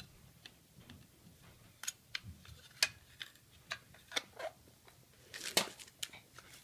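Clear plastic case of a Maxell UR60 blank cassette clicking and tapping as small hands turn it over and work it open, in scattered sharp clicks with the loudest cluster about five and a half seconds in.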